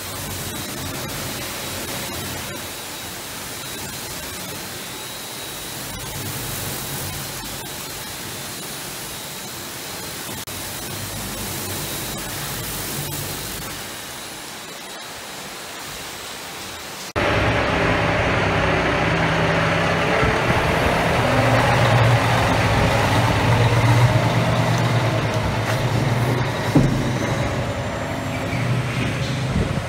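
Rollover truck wash's rotating brushes scrubbing a box truck under water spray: a steady hiss with a faint steady whine. About 17 seconds in it cuts to the truck's engine idling, with wind on the microphone.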